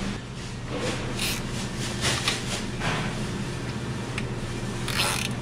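Hands rustling and handling wires and small plastic start-relay and capacitor parts in a refrigeration compressor's terminal box: a few short scuffs and rubs, over a steady low hum.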